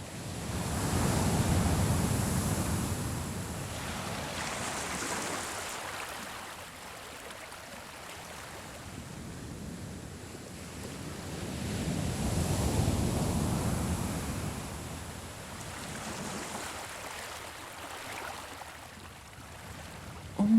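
Ocean waves washing ashore, a surf sound effect: a large wave swells and breaks near the start and another about two-thirds of the way through, with smaller surges between.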